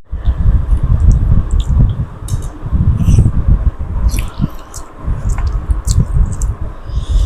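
Close-miked eating sounds: wet chewing and squishing with many short clicks and lip smacks, loud and constant.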